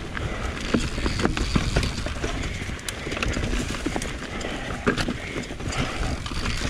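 Mountain bike riding over rough singletrack: tyres rolling over dirt, roots and rocks, with irregular clicks and knocks as the bike rattles over the bumps, over a steady low rumble.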